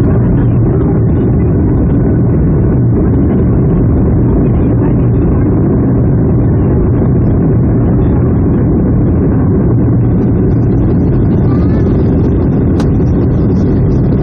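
Boeing 757-200 jet engines and airflow heard from inside the passenger cabin: a loud, steady low rumble, with hiss building over the last few seconds and a single sharp click near the end.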